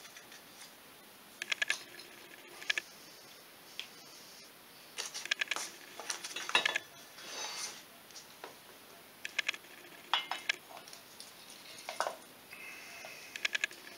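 A piston ring compressor and an aluminium cylinder jug clinking and clicking against each other as the jug is worked down over the piston of a Polaris 500 engine. The clicks come in short, scattered clusters.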